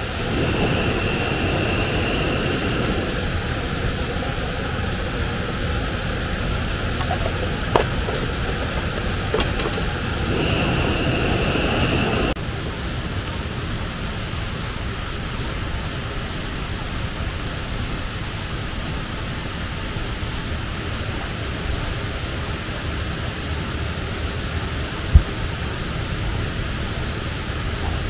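Steady rushing water, an even hiss throughout, with a thin high tone heard twice in the first half. The high hiss drops away suddenly about twelve seconds in, and there are two sharp single knocks.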